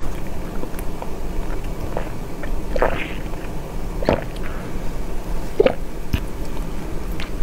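Wet sucking and slurping through a drinking straw pushed into a soft cream cake, with three louder slurps about a second or so apart over a steady low hiss.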